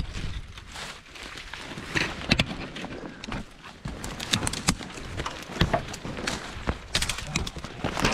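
Thorny brush and branches rustling, scraping and snapping as a person pushes and crawls through dense undergrowth, with irregular crunching steps.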